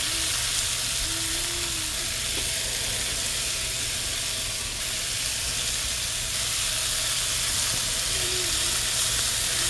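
Thin slices of raw beef sizzling in a hot cast iron frying pan with onions and peppers: a steady, loud hiss of frying that starts as the first slice hits the pan and holds as more slices are laid in.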